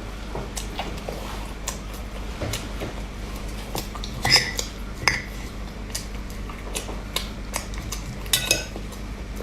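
Eating utensils clinking and tapping against dishes, a run of light clicks with a few louder ringing clinks about four, five and eight seconds in.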